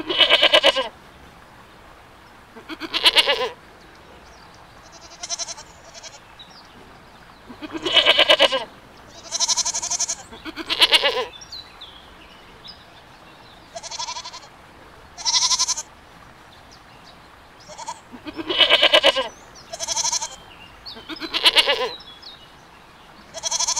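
Goats bleating: about a dozen separate calls of differing pitch, each under a second long and a few seconds apart, some of them wavering.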